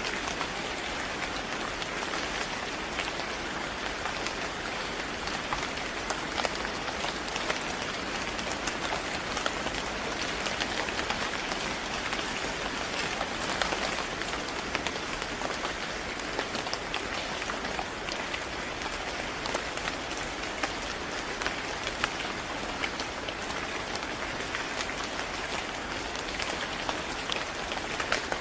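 Steady rain falling on a surface: an even hiss with many small drop ticks scattered through it.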